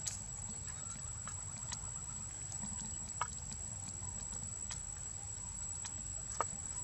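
Outdoor ambience: a steady high-pitched whine and a low rumble, with scattered sharp little clicks and ticks every second or so.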